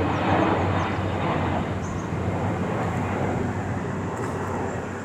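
Airliner descending towards Birmingham Airport, its jet engines a steady, broad rumble that slowly fades.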